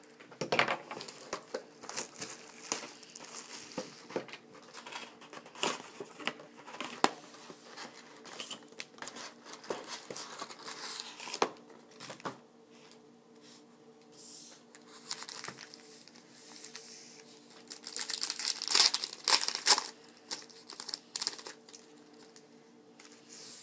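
Trading card packaging being crinkled and torn open by hand: the wrapping of a box of 2011 Panini Certified football cards and its packs, in irregular rustles with a louder spell of tearing near the end. A faint steady hum runs underneath.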